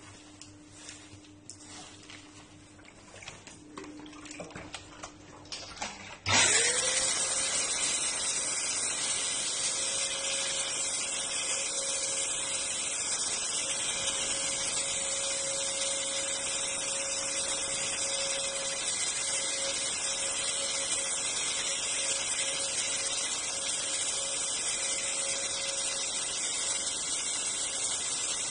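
Electric ULV backpack mist sprayer switched on about six seconds in: its blower motor spins up with a quick rising whine, then runs steadily with a loud rush of air as it blows out fine mist. Before it starts there are a few light clicks and knocks of handling.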